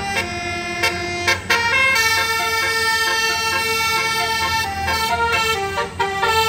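A basuri musical air horn on a tour bus playing a tune of held notes that step up and down, with one long note in the middle. The bus engine hums underneath.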